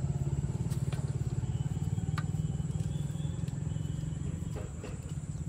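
A steady low rumble with a fast flutter, like an engine running nearby, with a few light taps on top.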